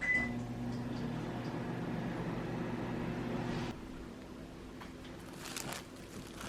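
Microwave oven: a short button beep, then its steady hum for about three and a half seconds before it cuts off abruptly. A few light rustles and clicks follow near the end.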